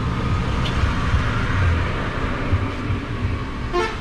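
Steady low rumble of road traffic, with a short higher-pitched sound near the end.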